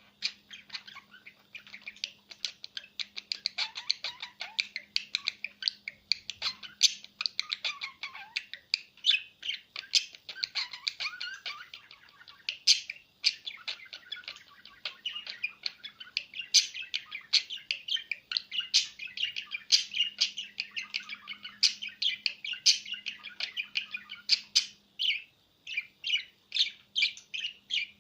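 A small pet bird chattering nonstop, a fast run of chirps, clicks and short high notes.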